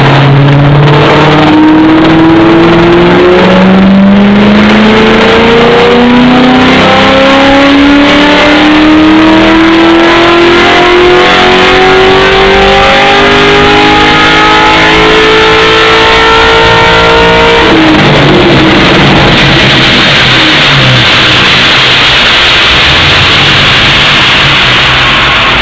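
Loud motor vehicle engine accelerating, its pitch climbing steadily for about eighteen seconds. The pitch then drops off suddenly and the engine runs on at a lower, rougher note.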